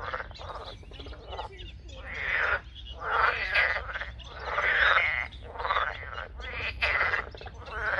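A chorus of frogs calling in a pond: loud calls of about a second each following one after another and overlapping, the loudest about halfway through.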